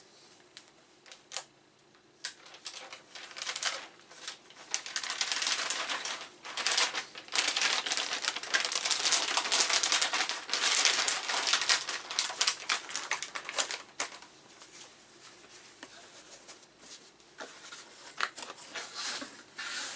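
Packaging being handled: rapid crinkling, rustling and clicking, densest through the middle, with scattered knocks before and after.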